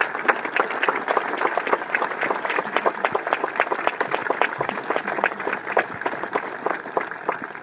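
Seated audience applauding, a dense patter of many hands clapping that thins out near the end.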